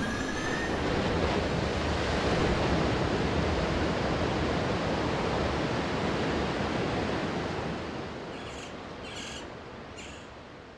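A steady, even rushing noise, like wind or surf, that fades out over the last few seconds, with three short hissy blips near the end.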